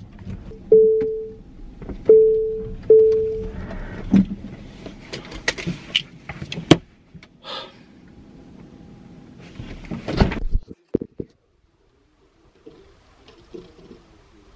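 A car's electronic chime sounding three times at one pitch, each tone starting sharply and fading away, followed by a scatter of clicks and knocks and a louder knock about ten seconds in.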